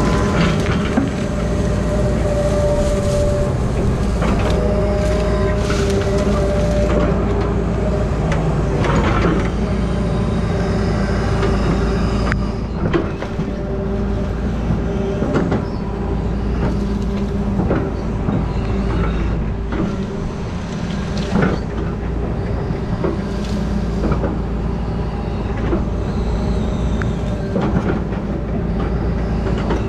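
Grapple saw machine working: a steady engine and hydraulic whine, with a scatter of sharp knocks and cracks.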